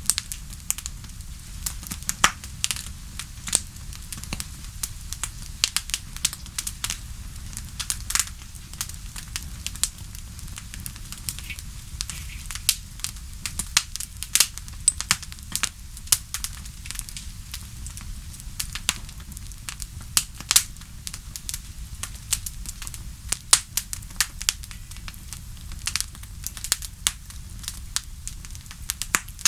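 Wood fire crackling: irregular sharp pops and snaps, some much louder than others, over a steady low rumble.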